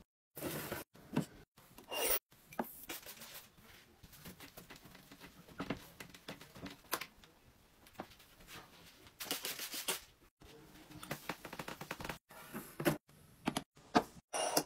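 Household tidying noises in short pieces: rubbing and brushing as a fluffy duster is swept over furniture, with scattered clicks, knocks and clatters of things being handled. Each piece cuts off abruptly and the next starts at once.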